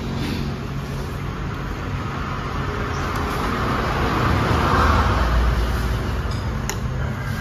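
Road vehicle rumble that swells to a peak about five seconds in as the vehicle passes, then eases off, with a few light clinks of spoons and chopsticks against soup bowls.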